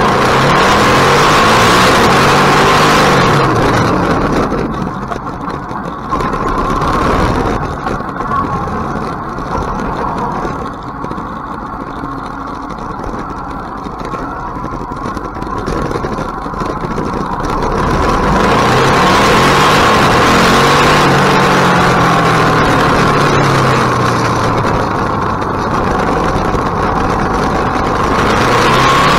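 KTM 1050 motorcycle's V-twin engine running under way on a mountain road, its pitch rising and falling with throttle and gear changes. A loud rush of wind noise is strong at the start and again from about two-thirds in, and drops away in between as the bike slows.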